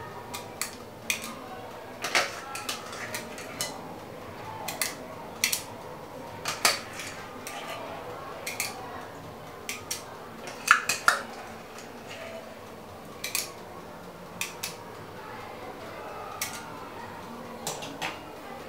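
Metal ice cream scoop clinking and scraping against a glass mixing bowl while portioning cake batter, with irregular sharp clicks about once a second and a louder pair just past the middle.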